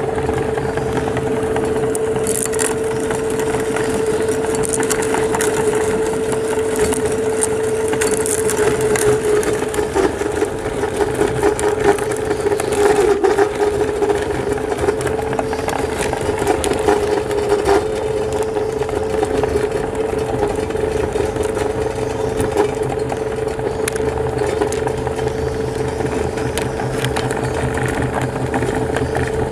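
Electric meat grinder running steadily with a constant motor hum while hard mint candies are crushed in it, giving a crackling, rattling crunch that is heaviest about midway through.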